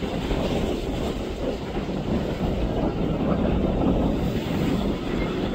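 Express cruiser running fast through the inlet: a steady rumble of its engines and rushing wake, with low wind buffeting on the microphone.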